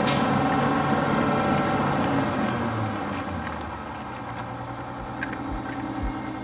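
Crown school bus engine running steadily, getting quieter about halfway through. A music beat comes in near the end.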